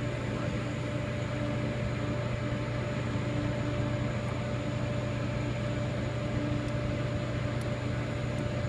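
Steady electrical machine hum: a constant low drone with a thin steady tone above it, and a fainter tone that cuts in and out about once a second.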